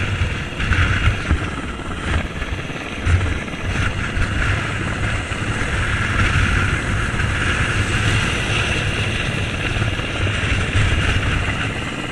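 Hovering rescue helicopter heard from directly beneath on the winch line: steady rotor and engine noise, with the rotor downwash buffeting the microphone in uneven low gusts.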